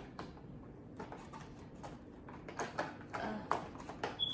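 Hands rummaging among plastic containers and bottles of slime supplies, searching for a glue bottle: scattered light clicks and knocks, coming more often in the second half.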